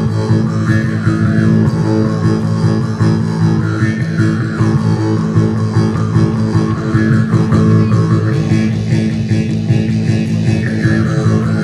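Mouth harp (jaw harp) played continuously: a steady, low twanging drone with overtones that shift and sweep above it as the mouth shape changes.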